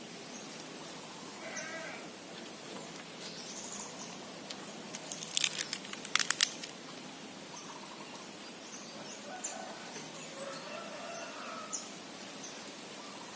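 Rural outdoor ambience with a few faint animal calls, and a quick run of loud, sharp clicks about five seconds in that stops after a second and a half.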